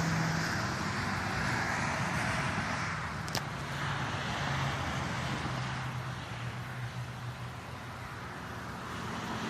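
Steady outdoor background noise with a faint low hum like a nearby vehicle engine, and a single small click about three seconds in.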